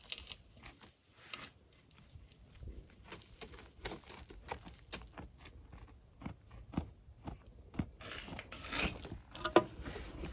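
A sheep chewing close up: a string of small, irregular crunching bites, louder for a stretch near the end.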